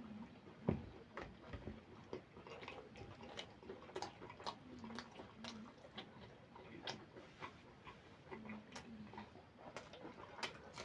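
Close-miked wet chewing and lip-smacking of a person eating, with many small irregular mouth clicks and a few brief low hums; a single louder knock about 0.7 s in.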